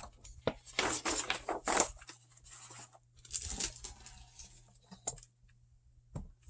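A large paper game map being unfolded and handled, rustling and crinkling in irregular bursts, with a short sharp click near the end.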